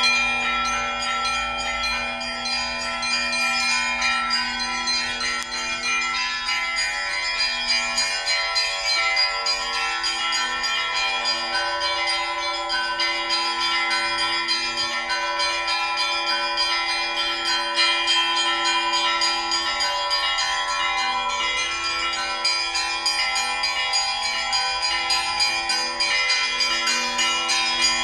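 Russian Orthodox church bells ringing together in a continuous peal: small bells struck in a rapid jangle over the steady ringing of deeper bells.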